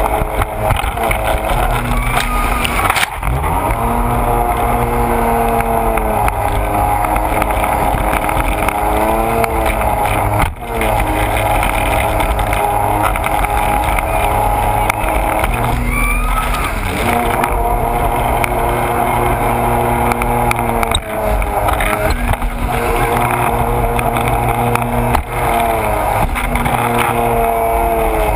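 Sea-Doo personal watercraft engine running hard at speed, with water spray splashing around the hull. Its pitch drops and climbs again several times, about every five seconds, as the throttle eases off and opens back up.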